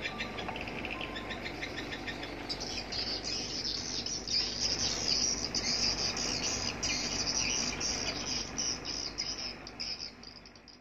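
Edible-nest swiftlets twittering: rapid, high chirping trills, with a louder, higher chirping joining about two and a half seconds in, fading out at the end.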